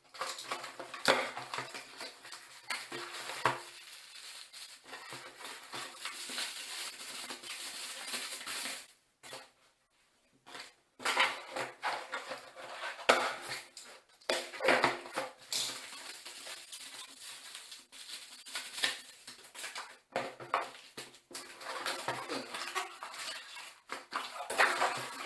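Metal parts and tools clinking, knocking and rattling as plumbing fittings are handled, in irregular bursts, with a brief silent pause about nine seconds in.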